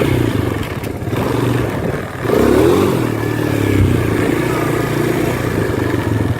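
Small four-wheeler (ATV) engine running as it is ridden, revving up briefly a little over two seconds in.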